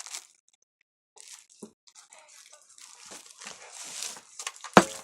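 Slime worked by hand, giving off irregular sticky crackling and small pops, with a sharp click near the end.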